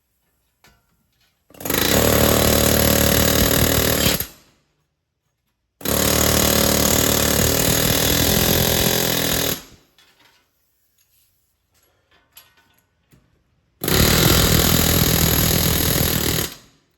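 Pneumatic air hammer run in three long bursts, hammering on a corrosion-seized hub bearing assembly to drive it out of its knuckle.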